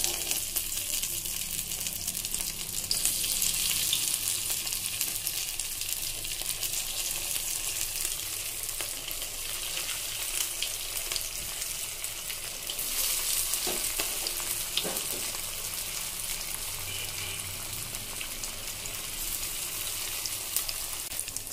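Breaded fish chops deep-frying in very hot vegetable oil in a kadai: a steady sizzling hiss, a little louder about three seconds in and again about thirteen seconds in.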